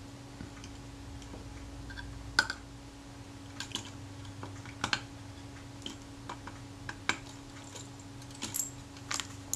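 Irregular small clicks and taps of a screwdriver and small metal parts on the Rolleiflex Automat TLR's body plate, about a dozen spread over several seconds, over a faint steady hum.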